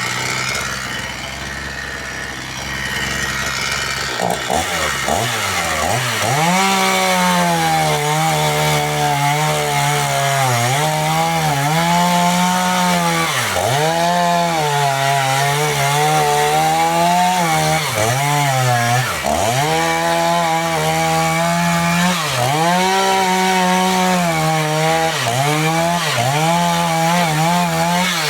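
Chainsaw idling, then revved up about four seconds in and cutting through firewood logs. Its engine note dips repeatedly as the chain bites into the wood and recovers between cuts.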